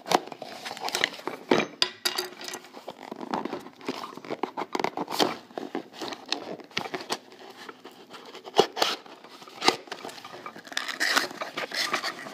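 A cardboard box being opened by hand: irregular rustling, scraping and tearing of cardboard and tape, broken by many sharp clicks and snaps.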